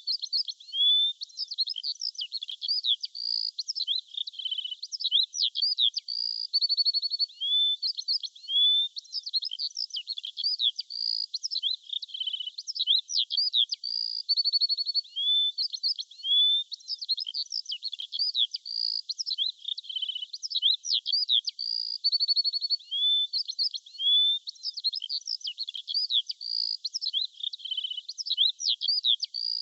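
Songbirds chirping and singing without pause: many short rising and falling high chirps mixed with brief quick trills.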